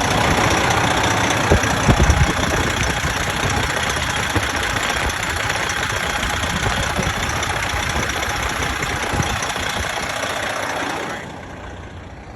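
Detroit Diesel Series 60 engine of a Freightliner glider truck idling after a temporary coolant hose clamp repair, under a loud rushing noise, with a few knocks about two seconds in. The rushing noise drops away about a second before the end.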